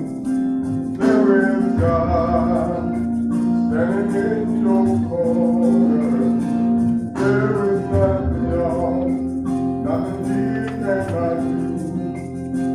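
Gospel song: voices singing held notes over instrumental accompaniment with a steady beat.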